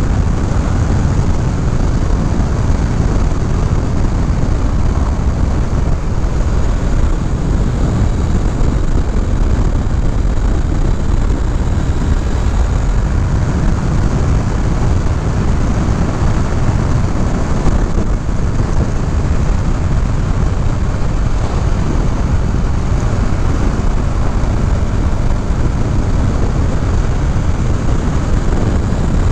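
Honda CBR500R parallel-twin motorcycle ridden at speed on a winding road: a steady, deep rush of wind over the microphone with the engine's drone underneath, unbroken throughout.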